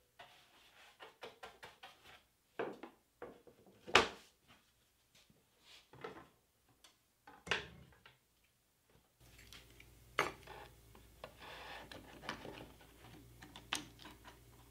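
Wooden jig pieces being handled and set down on a plywood workbench: a scatter of sharp knocks and clicks, the loudest about four seconds in and again near eight seconds. From about nine seconds a steady low hum sits under softer clicks and rubbing as a clamp is fitted to the jig.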